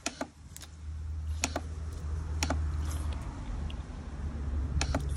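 Several sharp clicks and taps, scattered singly and in small clusters, over a steady low rumble.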